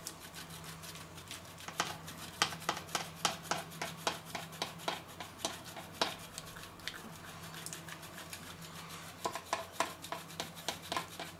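A block of marzipan being grated on a flat stainless-steel grater: a run of short, light scraping strokes, irregular and a few per second, over a faint steady low hum.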